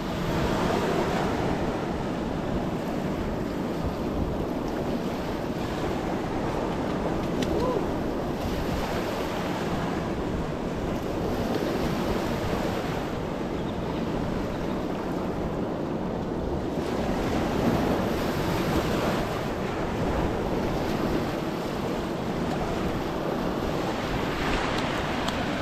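Wind buffeting the microphone over a steady wash of surf, swelling and easing every few seconds.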